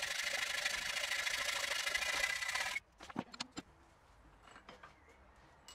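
Hacksaw cutting through M12 steel threaded rod clamped in a vise: a steady metallic rasping that stops suddenly about three seconds in. A few light clicks follow.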